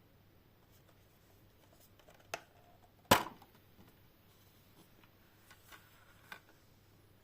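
Handling of a steelbook disc case and its packaging: light clicks and taps, with one sharp, louder click about three seconds in.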